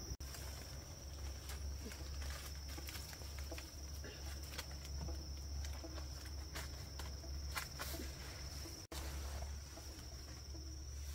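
A steady, high-pitched insect trill with scattered small clicks over a low rumble. The sound cuts out briefly twice, right at the start and about nine seconds in.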